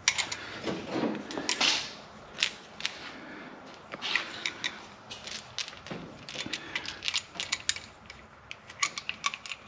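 Scattered light metallic clicks and clinks with rustling, from A/C hose and metal fittings being handled and pushed together.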